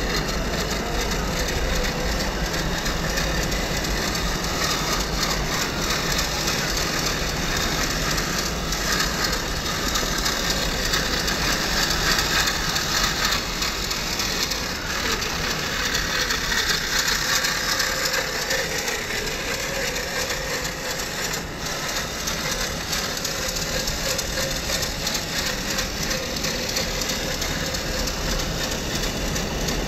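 1:10 scale RC4WD Gelande crawler's electric motor and geartrain whining as it crawls over dirt and rocks, the pitch rising and falling with the throttle, over a steady hiss.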